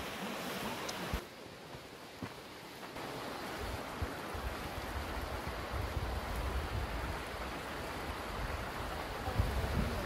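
Mountain stream rushing over rocks, a steady even noise, with a few handling knocks in the first couple of seconds and wind buffeting the microphone from about four seconds in.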